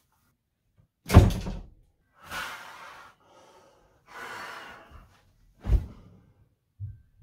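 A heavy thump about a second in and another just before six seconds, with two stretches of cloth rustling between them, as a T-shirt is pulled off and another pulled on.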